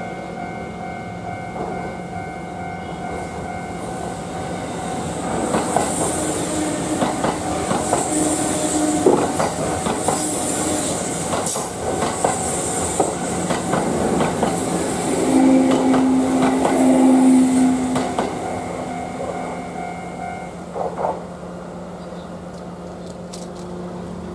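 A Kintetsu electric train passes over a level crossing, its wheels clacking over the rail joints, loudest about two-thirds of the way through. The crossing's warning bell rings steadily throughout and stops near the end as the train clears.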